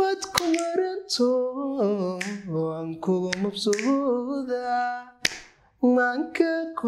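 A man singing an unaccompanied melody in long, wavering held notes, with another man snapping his fingers along every second or so. The voice breaks off briefly about five seconds in.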